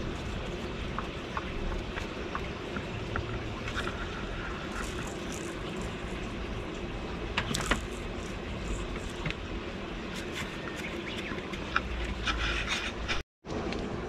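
Kittens playing on a concrete floor: light scattered taps and scuffles of paws and a small toy ball over a steady background hum. The sound cuts out briefly near the end.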